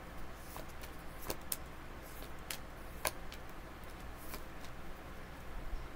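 Tarot cards being handled and drawn: a handful of short, sharp card snaps and taps at irregular intervals, over a faint low hum.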